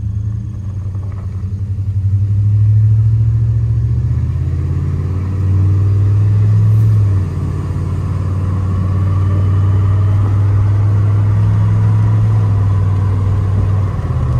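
Dodge Ram pickup's 5.9 L gas V8, just fitted with new spark plugs and wires, heard from inside the cab as the truck accelerates. The engine note rises, then drops sharply about seven seconds in as the automatic transmission upshifts, and pulls steadily again afterwards.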